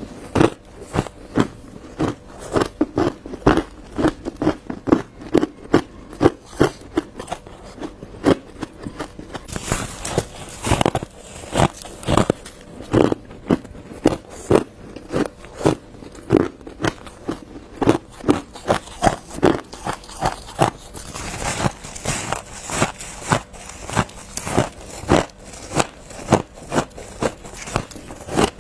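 Ice being bitten and chewed close to the microphone: a continuous run of sharp, crisp crunches, often two or three a second, with brief louder clusters of cracking.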